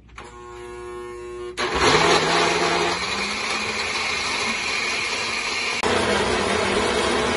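Countertop blender running, blending hard dry cheese with milk. It hums quietly at first, then about a second and a half in rises into a loud, steady whir.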